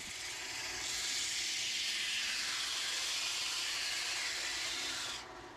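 Sandpaper held against a wooden drum spinning on a lathe, truing the drum: a steady, even sanding hiss that fades away about five seconds in.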